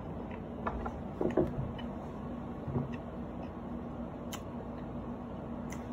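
Quiet room tone: a steady low hum with a few faint, scattered clicks.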